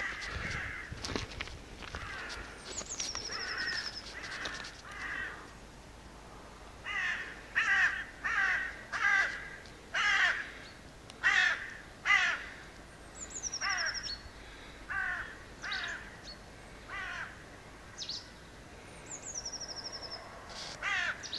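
Crows cawing: a long, irregular series of short harsh calls, thinning out in the last few seconds, the kind of cawing crows make when mobbing a bird of prey. Now and then a small bird gives a high, thin call that falls in pitch and ends in a short trill.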